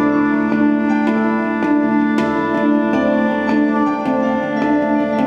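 Live instrumental music: handpan notes struck by hand about twice a second, each ringing on over other held tones.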